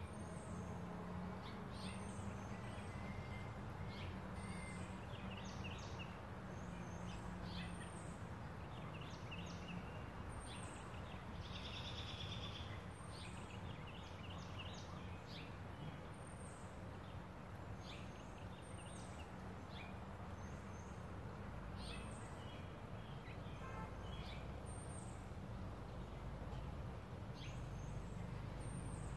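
Faint outdoor birdsong: a short, high, thin call repeats about every two seconds, with other scattered chirps and a brief trill about twelve seconds in, over a low steady hum.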